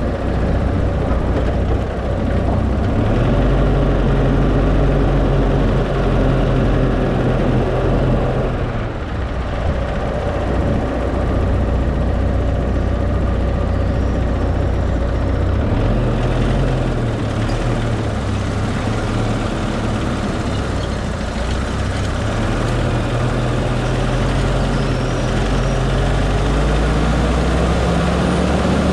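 Car engine running while driving, with road noise; the engine note rises and falls a few times with speed, dropping off about eight seconds in and climbing again about halfway through.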